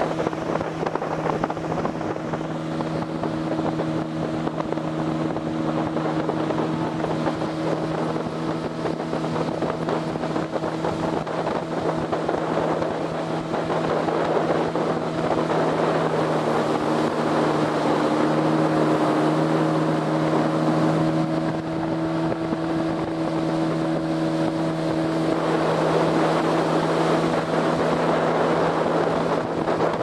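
Small boat's outboard motor running at a steady cruising speed, heard from on board, with water rushing along the hull and wind on the microphone.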